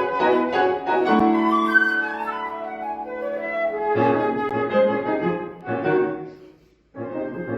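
Flute and piano playing a contemporary classical piece together. The music breaks off to a brief silence near the end, then both resume.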